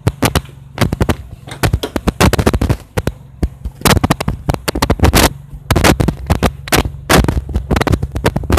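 Car engine idling steadily under a dense, irregular run of loud sharp cracks and pops, several a second and coming in clusters.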